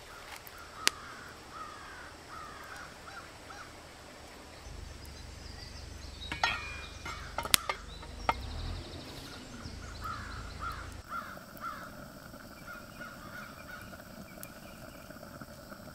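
Birds calling in the background, with a few sharp metal clinks between about six and eight seconds in as a metal lid is set on a cooking pot hanging over the fire.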